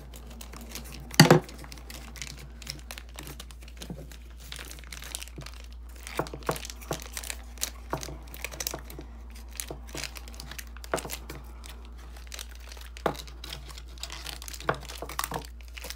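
Children's scissors cutting into a crinkly plastic toy wrapper, with irregular short crackles and snips and one louder crackle about a second in.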